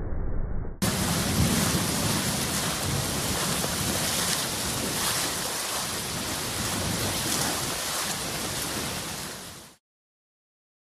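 Heavy rain pouring onto a flooded street, a loud steady hiss of rain and water. It starts abruptly after a brief muffled rumble and cuts off suddenly near the end.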